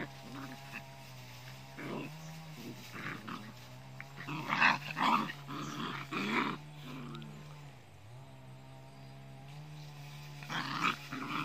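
Small dogs growling in play as they wrestle in the grass, a steady low growl with louder snarling bursts about halfway through and again near the end.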